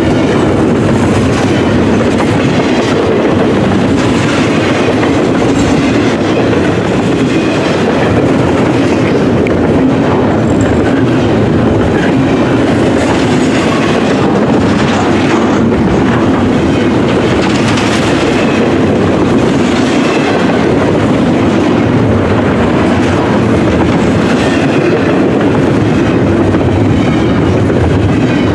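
CN double-stack intermodal train's container-laden well cars rolling past close by, a steady loud rumble with the wheels clicking over the rails.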